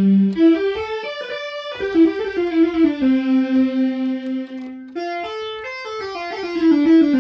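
OSCar analogue synthesizer playing a monophonic melody, one note at a time, stepping up and down in pitch, with a long note in the middle that pulses in level. The synth is working again after its restoration.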